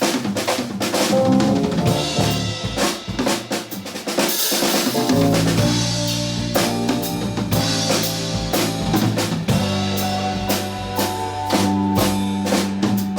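Live rock band playing an instrumental passage between verses, the drum kit out front with many quick snare and bass drum hits over held bass and chord notes.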